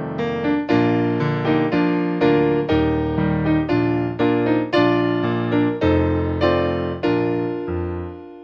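Background piano music: chords struck about twice a second, each fading away, slowing near the end into a last chord left to ring.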